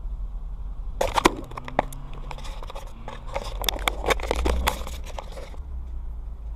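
Rustling and crackling handling noise from a handheld camera's microphone, dense sharp clicks from about a second in until near the end, over a steady low rumble.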